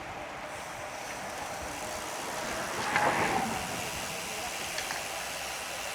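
Steady wind and road noise from riding a bicycle on the road, with a louder rushing swell about three seconds in that then fades.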